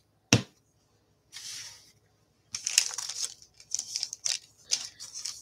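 A single sharp knock, then crackling and crinkling of a paper-backed sheet of adhesive rhinestone gems being handled and peeled open, in irregular short bursts from about halfway in.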